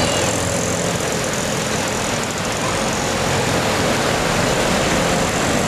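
Small cars driving through a flooded road, their engines running under a steady rush of water churned up by the wheels.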